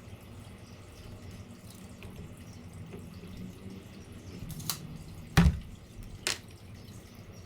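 Three sharp knocks, about half a second to a second apart, the second by far the loudest, over a faint low hum.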